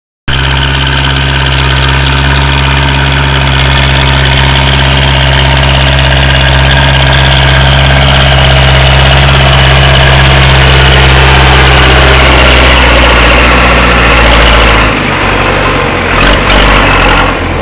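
Zetor 7245 tractor's four-cylinder diesel engine running steadily and loud under ploughing load. Near the end the steady note breaks up and turns uneven.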